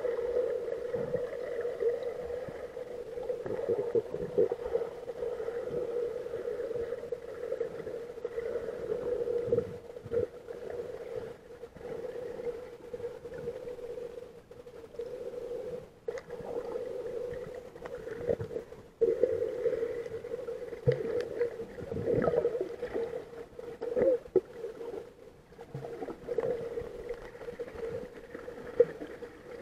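Muffled underwater sound picked up by an action camera in its waterproof housing: a steady hum, with water moving around the case and scattered soft knocks.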